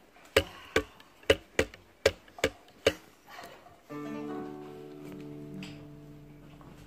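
Seven sharp, evenly spaced taps, about two and a half a second, then about four seconds in an electric keyboard sounds a chord that is held and fades slowly.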